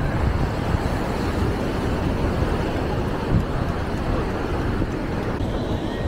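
Wind buffeting the microphone in a steady, uneven low rumble, over the wash of ocean surf.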